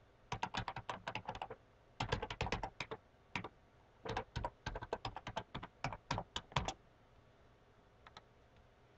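Typing on a computer keyboard: quick runs of key clicks in several bursts while a user name and password are entered, stopping about seven seconds in. A couple of faint clicks follow near the end.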